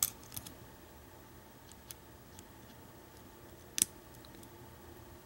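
Small metallic clicks of a lock pick and tension wrench working the pin stack of an American Lock 1100 padlock: a few scattered ticks, the loudest about four seconds in.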